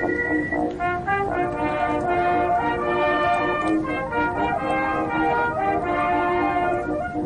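Old, narrow-sounding band recording of brass instruments, trombone and horns among them, playing a continuous tune, as from a vintage radio, with a steady crackling hiss beneath.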